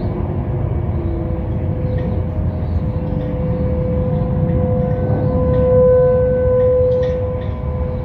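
Several distant outdoor warning sirens sounding at once during a monthly test. A steady tone swells to its loudest a little after the middle, and a fainter falling tone is heard early on, all over a constant low rumble.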